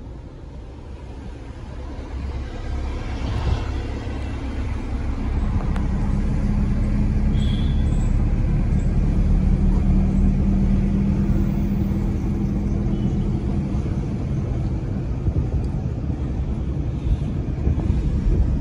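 A moving car heard from its open window: wind rushing past and road rumble, growing louder over the first few seconds, with a steady low hum through the middle.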